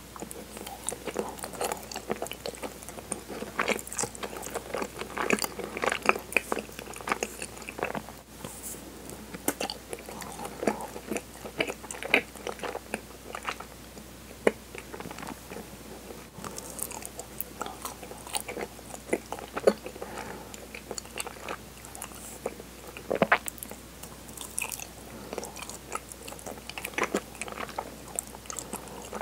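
Close-miked mouth sounds of chewing soft, cinnamon-flavoured chigiri mochi dusted with kinako, then biting into and chewing a chocolate-coated PARM vanilla ice cream bar. The chewing comes with many irregular wet clicks and smacks.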